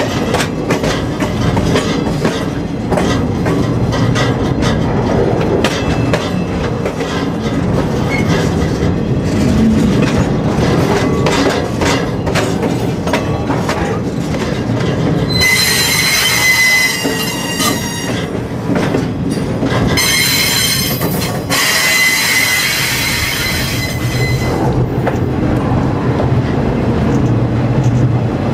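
Freight train rolling, heard from aboard the cars: a steady rumble and clatter of wheels over rail. About halfway through, the wheels squeal high and shrill in two stretches of several seconds, as flanges grind against the rail.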